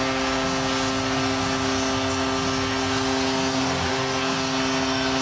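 Hockey arena goal horn sounding one long, steady low chord over a cheering crowd: the signal of a home-team goal.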